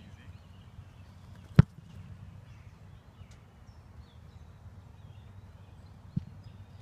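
A football punted: one sharp, loud thump of the foot striking the ball about one and a half seconds in, then a much softer thud near the end as the ball comes down, about 4.6 seconds later. Birds chirp faintly in between.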